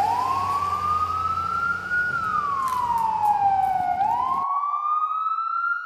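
Emergency-vehicle siren wailing: one tone sweeping slowly up and down, each rise and each fall taking about two seconds. A low background rumble under it drops out about four and a half seconds in.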